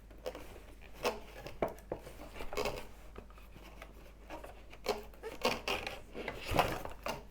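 Rustling and handling of product packaging during unboxing, with scattered light knocks and clicks as items are moved about.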